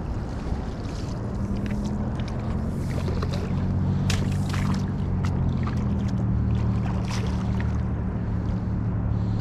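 A steady low motor hum begins about a second in and runs on, with scattered short faint clicks over it.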